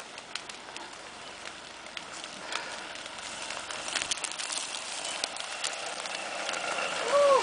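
A Mercedes 190 saloon rolling slowly closer over a dry-grass track: dry grass and twigs crunching and crackling under it, with scattered sharp clicks, getting gradually louder. A short shout comes near the end.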